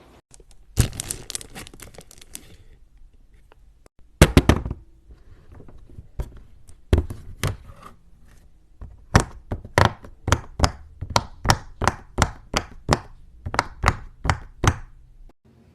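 Silicone pop-it fidget toy being pressed, its bubbles snapping through with sharp pops: a quick flurry in the first couple of seconds and another about four seconds in, then a steady run of about two pops a second.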